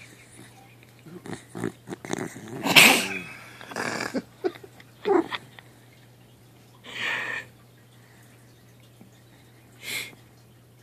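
Sleeping dachshund snoring and snorting irregularly: a cluster of short grunting snorts and breaths, the loudest about three seconds in, then two single huffs of breath later on.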